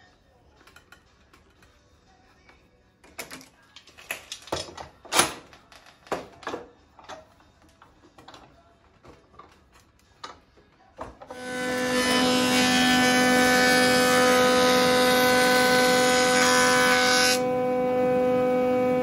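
Screw clamps being tightened and bar clamps knocking against a glued-up wooden board, a series of clicks and knocks. About eleven seconds in, a woodworking jointer-planer starts up and runs with a loud, steady hum on one fixed pitch, and this is the loudest sound.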